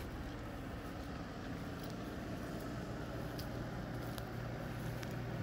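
Steady low mechanical hum of running machinery over outdoor background noise, with a few faint ticks.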